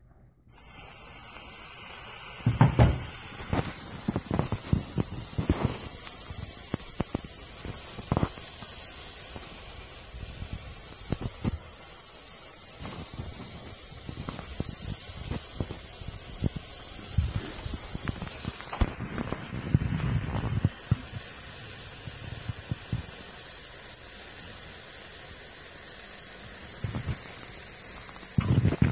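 Red-hot metal ball sizzling as it burns into a block of mozzarella cheese: a steady hiss that starts suddenly about half a second in, as the ball touches the cheese, with frequent crackling pops throughout.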